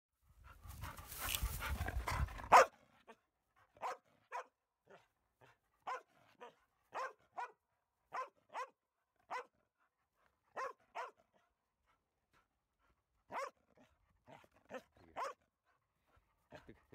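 Black Labrador retriever barking in short, separate barks, often in pairs, about a second or so apart. Just before the barking, a brief rustle ends in a sharp knock.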